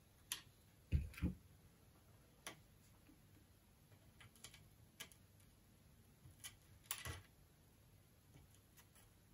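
Sparse small clicks and taps of soldering-iron and hand handling against wire terminals and a plastic housing during soldering. Two louder knocks come about a second in, and another cluster of clicks comes near the end.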